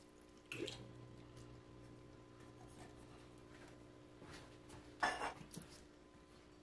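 Canned diced tomatoes sliding out of the can and plopping into a pot of ground beef and vegetables, followed about five seconds in by a sharp knock, the loudest sound. A faint steady hum runs underneath.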